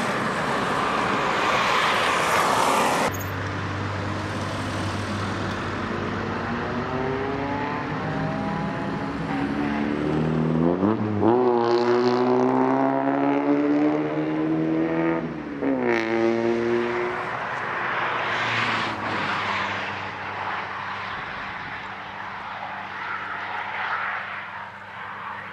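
Road traffic: a passing vehicle's engine note climbs as it approaches, holds, then drops away about two-thirds of the way through, over a steady low road hum.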